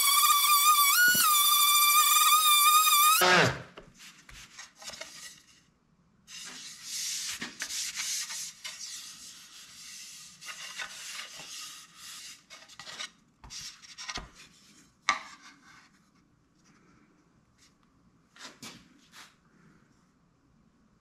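DeWalt random orbital sander running on a hardwood board with a steady whine, switched off about three seconds in and spinning down. After it, on and off, the wooden board is rubbed and scuffed by hand.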